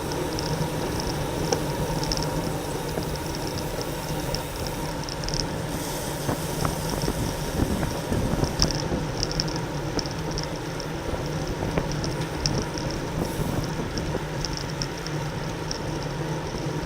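Road bicycle riding at race speed, heard from a camera mounted on the bike: a steady rumble of wind on the microphone and tyre and drivetrain noise, with short high-pitched buzzes recurring every second or so.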